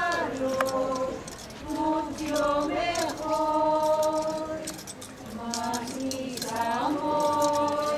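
A group of voices singing a slow hymn, with long held notes in phrases of a second or two.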